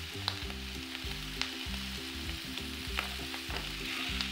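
Merguez sausages sizzling in a dry frying pan as a fork pricks them, its tines clicking against the pan several times. The pricking lets the sausages' fat run out into the pan.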